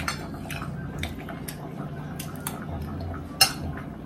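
Close-up eating sounds: wet chewing and small mouth clicks, with spoon clicks against a plate. A sharp click, the loudest of them, comes about three and a half seconds in, over a steady low hum.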